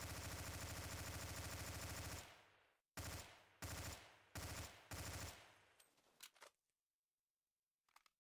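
Automatic weapon fire, a sound effect from the series: one long rapid burst of about two and a half seconds, then four short bursts in quick succession, each dying away after it stops.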